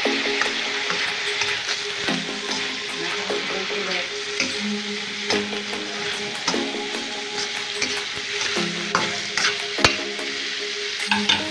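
Julienned carrots and sweet potato sizzling in hot oil in a stainless steel wok, stirred and tossed with a metal spatula that clicks and scrapes against the pan.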